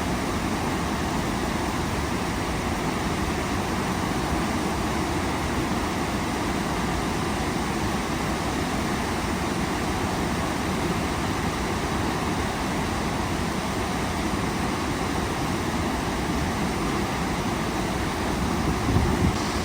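Waterfall rushing: a steady, even rush of falling water, with a brief low thump near the end.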